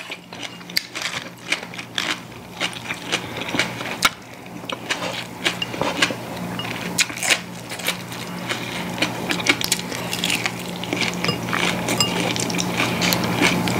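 Close-miked eating at a table: chewing and crunching, with chopsticks clicking against ceramic bowls and dishes in many short, irregular clicks over a steady low hum.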